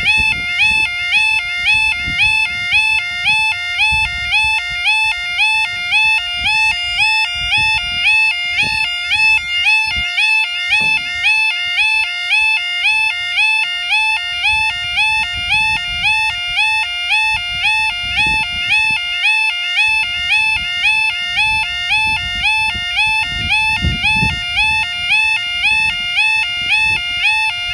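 UK level crossing yodel alarm sounding, a loud electronic tone warbling up and down in quick, even repeats, as the crossing activates to warn road users of an approaching train. Gusts of wind buffet the microphone underneath.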